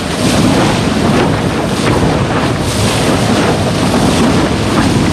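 Loud wind buffeting the microphone, with water rushing and splashing along an electric SUP board planing at speed under motor power.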